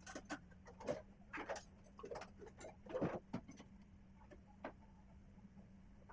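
Irregular light clicks and taps of small tools handled on an electronics repair bench, thickest in the first three and a half seconds, over a faint steady hum.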